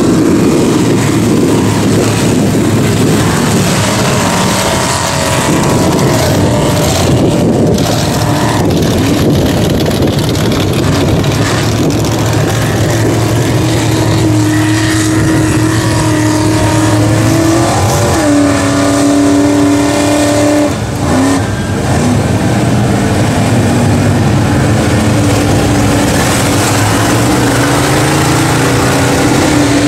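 Mega mud truck's engine running hard at high revs as its big tyres churn through deep mud, with mud and tyre noise heavy at first. In the second half the engine holds a steady high note that steps down in pitch a couple of times.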